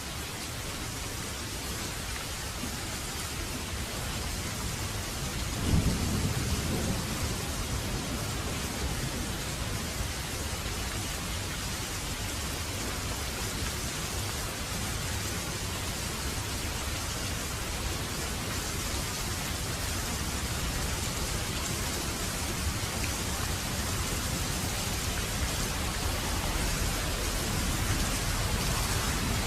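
Steady heavy rain falling, with a rumble of thunder breaking about six seconds in and rolling away over several seconds, and more thunder building near the end.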